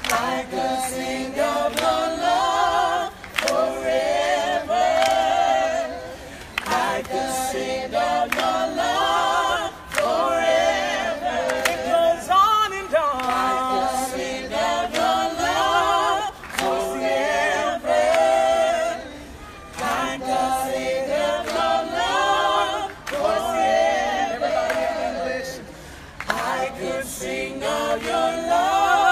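A small group of voices singing a worship song together without instruments, in phrases broken by short pauses.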